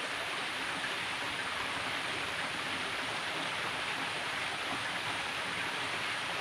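Steady rushing of a small stream's flowing water, an even hiss without change.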